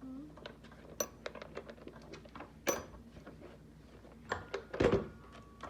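Scattered small clicks and taps of screws and stool parts being handled during reassembly, with a louder knock near the end.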